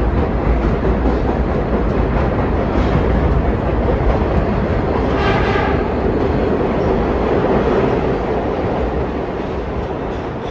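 New York City subway train running on the rails, a steady loud rumble, with a short high squeal about five seconds in.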